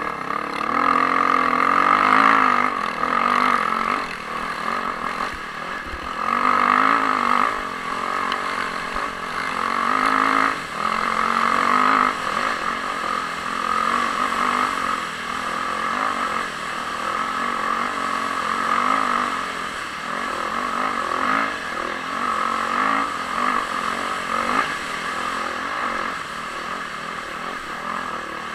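Off-road dirt bike engine running hard, heard from the rider's helmet camera, its revs rising and falling as the throttle opens and closes, with louder surges about two, seven and eleven seconds in.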